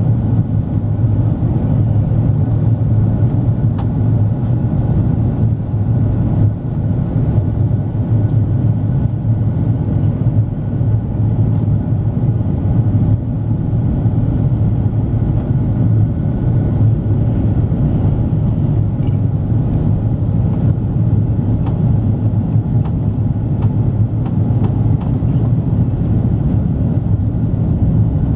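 Steady cabin noise inside an Airbus A330-300 airliner: a low, even rumble of its General Electric CF6 engines and the airflow past the fuselage.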